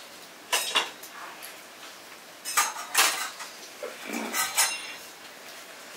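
Metal kitchen utensils and dishes clinking and knocking together in three short bursts, some clinks ringing briefly.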